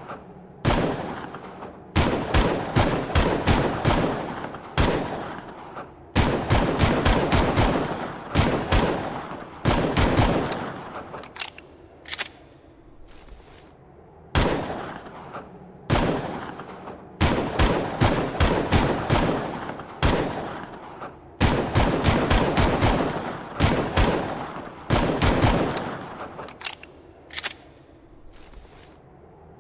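Longslide pistol sound effect: shots fired singly and in quick strings of about four a second, each shot trailing off in an echoing tail, with short pauses between strings.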